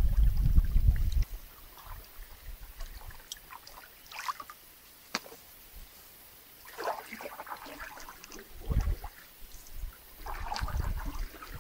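Canoe paddle strokes in calm water: the blade dipping and swishing, with water trickling and dripping off it. There are two clear swishes, about seven and ten seconds in, and a low knock between them. A low rumble on the microphone fills the first second or so, then stops.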